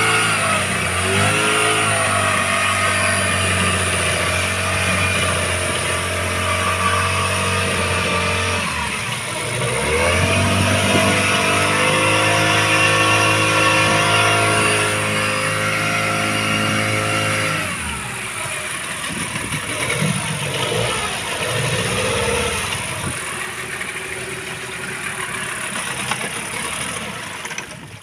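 Small fishing boat's motor running steadily under way, twice dipping in pitch and picking up again. About two-thirds of the way through it is throttled down, leaving a lower, uneven running with water washing along the hull.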